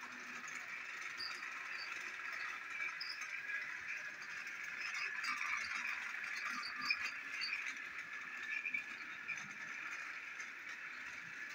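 Battery-powered toy train engine running around plastic track, a steady motor whir with light clicking and rattling from the wheels and the trucks behind it. It gets louder about halfway through as the train passes close, then fades a little.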